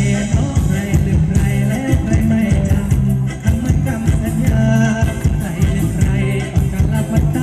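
Live band playing upbeat Thai ramwong dance music over loudspeakers, with a steady driving beat, strong bass and a voice singing.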